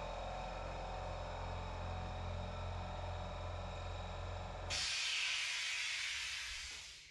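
A steady low hum with a few held tones. About two-thirds of the way through it cuts off abruptly and an even hiss takes over, fading out near the end.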